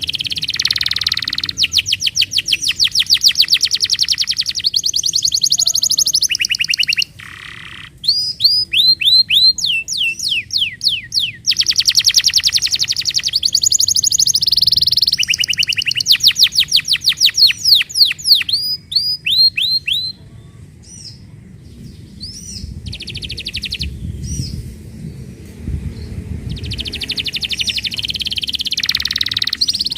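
Domestic canary singing in long, rapid trills of repeated notes and rolling phrases, with a short lull about two-thirds of the way through before the song picks up again.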